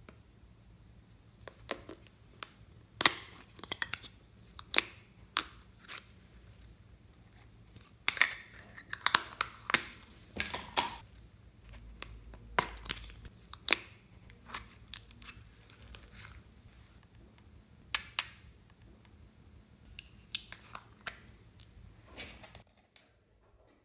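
Plastic slime containers handled and opened by hand: a string of sharp clicks, snaps and crackles from the plastic lids and tubs, with a dense patch of crackling about a third of the way in.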